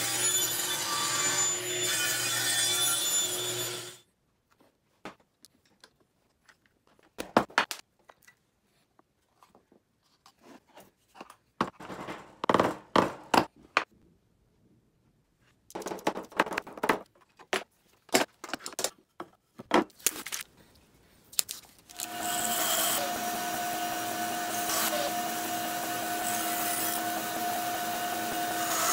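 Table saw running for about four seconds, then cutting off abruptly. Scattered light knocks and clicks of wood blocks being handled follow. For the last several seconds, a bandsaw runs steadily with a held whine, cutting a hardwood blank.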